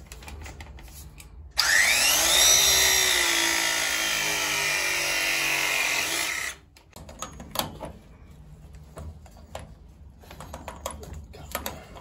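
Milwaukee M18 battery press tool crimping a 1¼-inch MegaPress steel elbow onto black steam pipe. The motor whine rises in pitch as it starts, runs steadily for about five seconds, then cuts off sharply at the end of the press cycle. A few light clicks and knocks follow.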